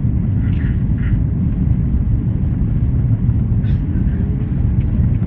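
Airliner cabin noise on final approach: the steady low rumble of the jet's engines and airflow heard from inside the cabin, with a few faint brief sounds about half a second, a second and three and a half seconds in.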